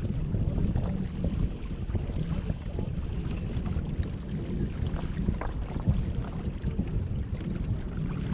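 Wind buffeting the microphone: a steady low rumble, with a few faint scattered clicks.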